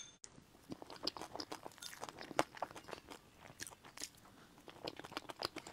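Close-miked chewing of a cream cake with a crunchy crumb and cookie topping: many quick, irregular crisp crunches.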